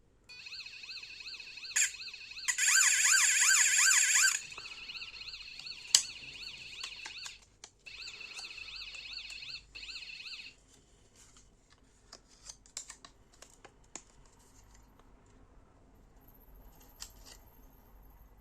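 Electronic bike horn sounding through a small piezo buzzer: a rapidly warbling siren tone, loudest for about two seconds near the start. It breaks off briefly, sounds again for a few seconds, then stops, leaving a scatter of small clicks and taps.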